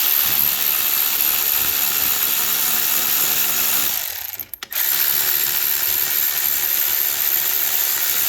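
Electric ratchet running in two long bursts with a short break about four seconds in, spinning bolts on a motorcycle front end.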